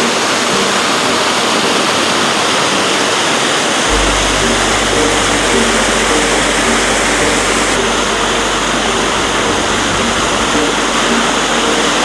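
Steady rush of a small mountain-stream waterfall, with background music playing over it and a low bass note coming in about four seconds in.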